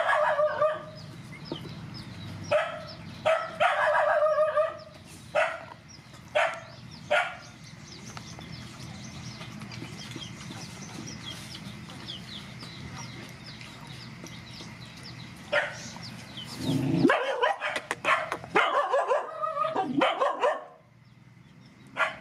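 Puppy whining and yelping in short, high cries that come in groups: several in the first few seconds, then a denser run near the end. Faint high chirping goes on underneath in the quieter stretch between.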